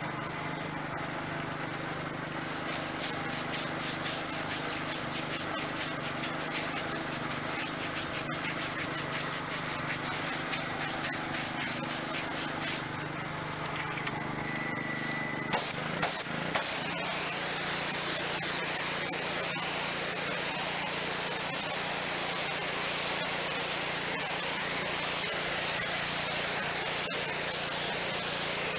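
Continuous spraying hiss over a steady motor hum. A few sharp clicks come about halfway through, after which the spray changes.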